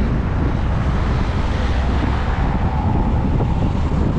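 Wind buffeting the microphone while moving along a busy highway, a steady low rumble with road and traffic noise underneath.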